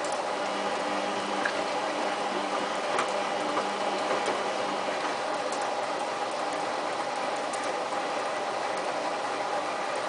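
Samsung WF8804RPA front-loading washing machine in its first rinse: the drum turning with water sloshing through the wet load, over a steady motor hum. A lower extra hum runs for about the first half and then stops.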